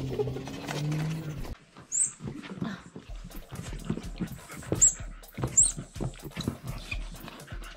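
A husky mouthing and biting a squeaky rubber chicken toy. First comes a drawn-out pitched squawk that slides upward, then many clicks of teeth and jaws on the rubber, with a few brief high squeaks.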